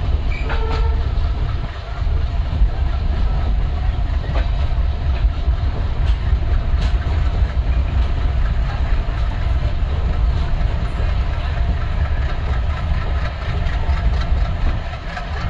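A diesel-hauled passenger train running, heard from on board: a steady low rumble of wheels on track with occasional sharp clicks.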